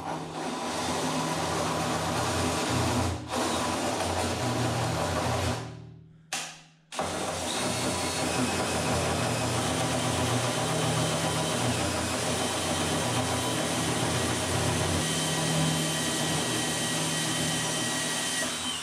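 Cordless drill running a hole saw through 3/16-inch steel angle iron, its motor sounding under steady load with a thin high squeal from the cutting. It runs for about five seconds and stops, gives a short burst, then runs again steadily until the end.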